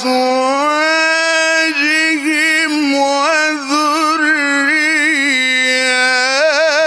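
A man reciting the Quran in the melodic mujawwad style, drawing one long melismatic note through the whole phrase. The pitch rises near the start and is held high with rapid wavering ornaments, settling lower near the end.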